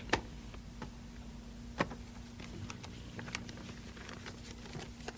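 Tissue paper being handled: light rustling and a few short clicks, the sharpest just after the start and another about two seconds in, over a low steady hum.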